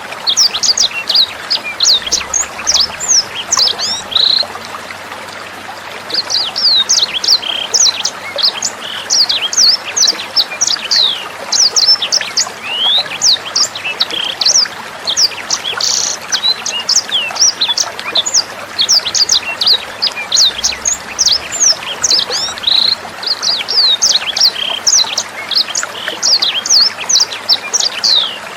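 Sanger bird singing a fast, dense stream of sharp, high chirps and quick sweeping notes, with a short pause about five seconds in. Steady trickling water runs underneath.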